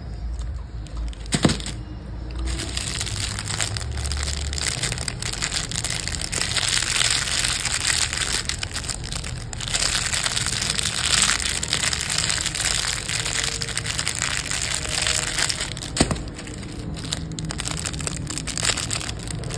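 Plastic candy wrappers of jelly sweets crinkling and crackling as they are squeezed and handled, with two sharp snaps, one early and one later.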